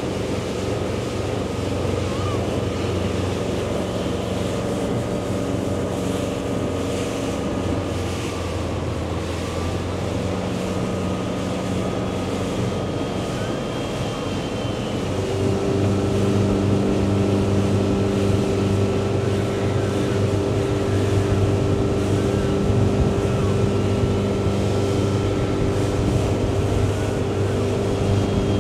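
Motorboat engine running steadily at speed, with rushing water and wind noise. About halfway through, its hum gets louder and changes pitch.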